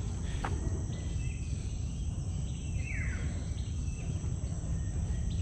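Steady high-pitched insect drone over a low rumble, with a bird giving one descending whistled call about three seconds in.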